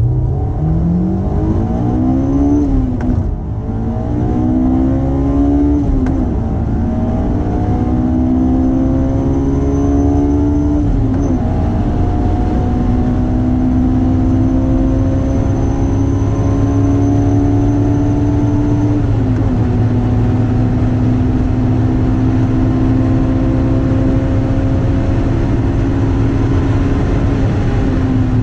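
2005 Honda S2000's four-cylinder engine and exhaust pulling hard through the gears. The engine note climbs in pitch and drops at each upshift, with shifts a few seconds in, about six seconds in, about eleven seconds in and about nineteen seconds in, each gear held longer, over a steady low rumble.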